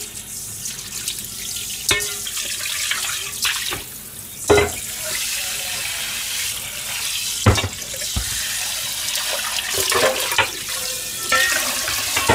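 Kitchen tap running into a stainless steel sink while metal bowls are rinsed, with a steady splashing hiss. Several sharp clanks of metal bowls knocking, the loudest about four and a half and seven and a half seconds in. Near the end the stream fills a cooking pot.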